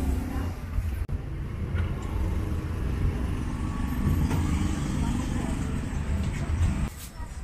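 Road traffic running past a roadside stall: a steady low rumble of car and motorbike engines.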